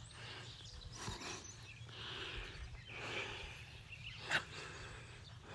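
Faint rural outdoor ambience with soft, scattered chirping, and one short sharp click about four seconds in.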